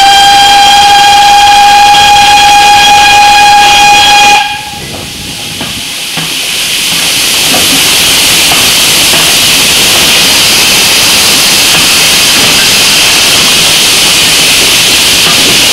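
A steam locomotive whistle, the Great Western whistle of 2-6-2T tank engine 5526, sounding one long steady blast that cuts off about four seconds in. After a brief lull, a loud, steady hiss rises in over a couple of seconds and holds.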